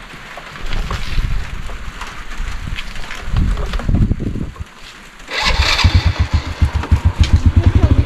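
A small motorcycle engine starts about five seconds in. It catches at once and settles into a fast, even idle. Before that there are scattered knocks and rustling.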